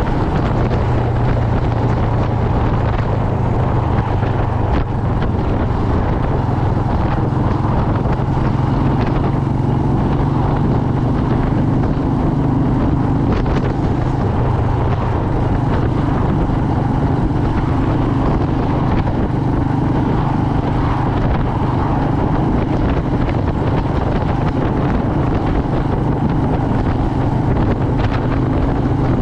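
Royal Enfield Meteor 350's single-cylinder engine running at a steady road cruise, with wind noise on the microphone.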